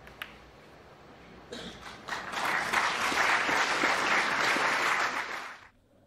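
A sharp click of a snooker shot just after the start, then an audience applauding from about a second and a half in, with the applause cutting off suddenly near the end.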